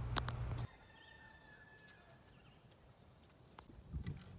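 A low steady rumble with a couple of clicks cuts off abruptly under a second in. Over quiet, a faint distant animal call follows, one long held wavering note lasting about a second and a half. Near the end comes the water noise of a canoe out on the river.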